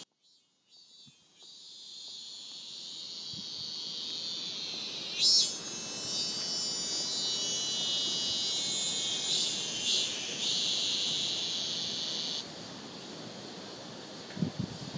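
A steady high-pitched buzzing hiss fades in over the first few seconds. It jumps louder about five seconds in and drops away suddenly near the end, with a few soft knocks just before the end.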